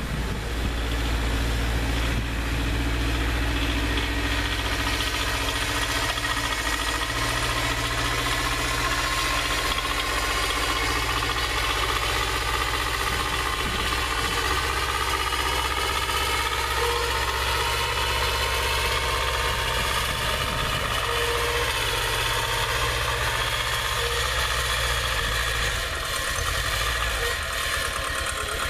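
1980 Ford 1200 compact tractor's three-cylinder diesel engine running steadily while the tractor plows snow with its front blade.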